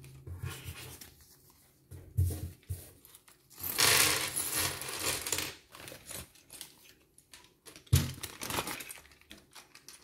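Plastic bag crinkling and being torn open, and small plastic building bricks spilling out and clattering onto a hard table, in irregular bursts, loudest about four seconds in.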